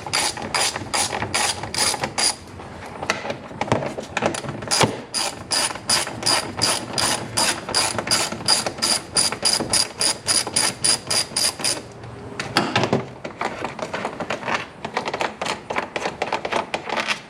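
Hand socket ratchet clicking as it turns out the 10 mm engine-cover bolts. The clicks come in steady runs of about three or four a second, with a pause about two seconds in and looser, fainter clicking near the end.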